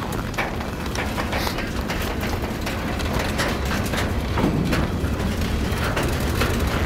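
A steady low rumble that grows slightly louder toward the end, with irregular clicks and knocks scattered through it.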